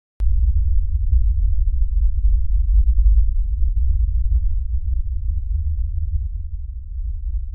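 A deep, steady bass drone of the kind used in a cinematic film score. It starts abruptly with a click and slowly fades near the end.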